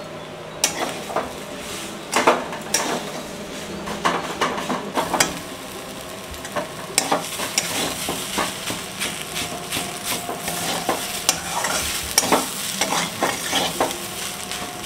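Steel spatula scraping and knocking against a metal kadhai, over and over, as a grated radish and potato stuffing is stirred and fried, with a light sizzle underneath. The stirring cooks off the radish's water.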